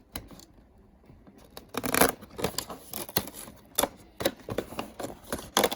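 Irregular clicks, taps and short rustles of things being handled, with the loudest bunched from about a second and a half in onward.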